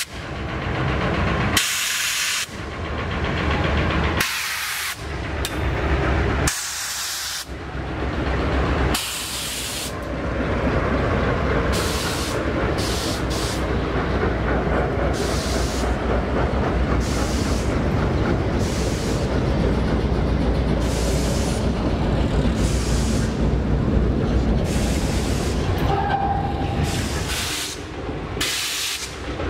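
Two GE C30-7 diesel-electric locomotives passing with a steady low engine drone, followed by loaded freight boxcars rolling by with rumbling wheels and sharp intermittent screeching and clatter from the wheels on the rails.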